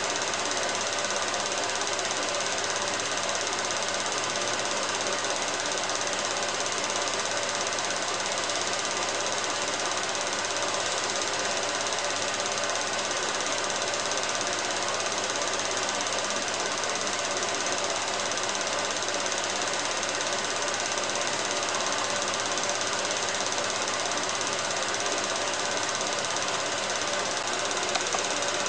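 16mm cine projector running: a steady, even mechanical clatter of the film transport that does not change, with a couple of slightly louder clicks near the end.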